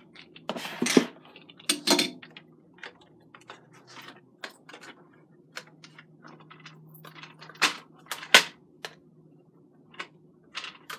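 Hard plastic spiralizer parts being handled and fitted together: scattered clicks and clacks, with sharper knocks about a second in, near two seconds and twice around eight seconds.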